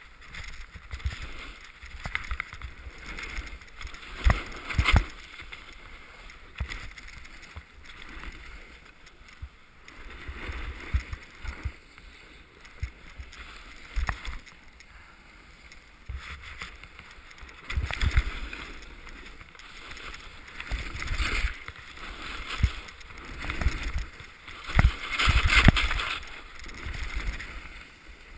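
Carving turns down a packed-snow ski run: edges scraping the snow in repeated swells of hiss, with low thumps as bumps jolt the camera. The loudest scrape comes near the end.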